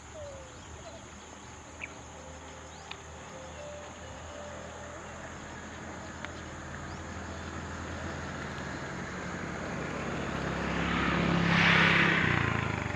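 A motor vehicle approaching and passing close by: its engine hum and road noise build steadily, peak near the end, then fall away.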